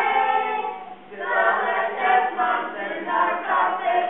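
A group of children and adults singing a song together without accompaniment, with a short break between phrases about a second in.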